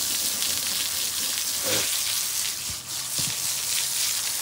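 Garden hose spraying a strong jet of water onto a foal's wet coat and the concrete floor: a steady hiss that briefly drops about three seconds in.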